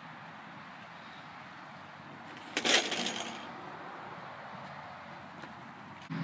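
A DK BMX bike crashing down onto asphalt about two and a half seconds in: one loud metallic clatter with a short rattle, over a steady low background hum.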